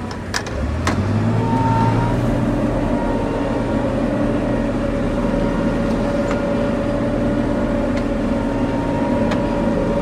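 John Deere combine's engine heard from inside the cab while driving, picking up speed about a second in and then running steadily. Two sharp clicks just before it speeds up.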